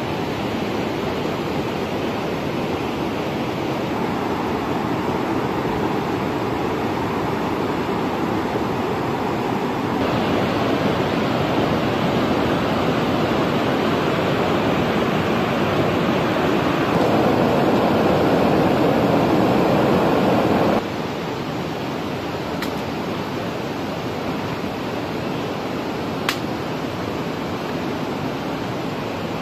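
Steady rush of a fast-flowing river over rocks. About two-thirds of the way through the level drops suddenly and the rush goes on quieter, with a couple of faint clicks near the end.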